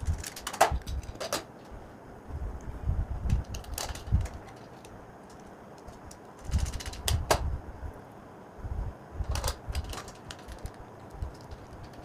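Irregular clicks, taps and handling knocks of a screwdriver and plastic switch and socket parts being screwed onto a laminate switch board.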